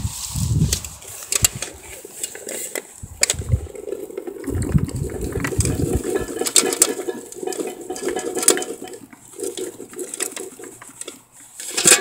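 A bucket of freshly picked blueberries being carried and handled while walking: irregular clicks and knocks of the berries and bucket, with bursts of low rumble from handling.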